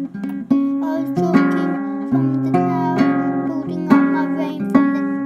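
Acoustic guitar strummed, chords changing with a fresh strum roughly every second.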